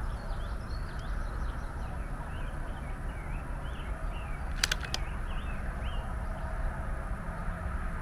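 Small birds chirping with many short rising and falling calls, over a low steady rumble. Two sharp clicks come a fraction of a second apart about halfway through.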